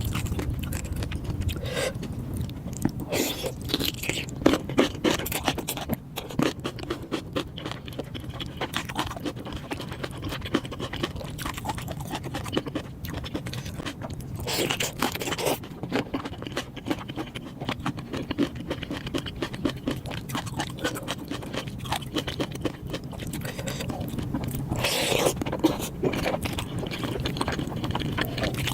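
Close-miked eating sounds: steady chewing with dense crisp clicks and crunches, and a few longer, louder swells of noise about 3, 15 and 25 seconds in.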